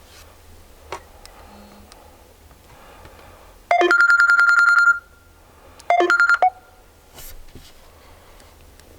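Samsung Galaxy S4 ringtone preview playing through the phone's speaker: a rapid electronic trill like a telephone bell, rings for about a second and a half, then starts again and cuts off after half a second. A faint tap comes about a second in.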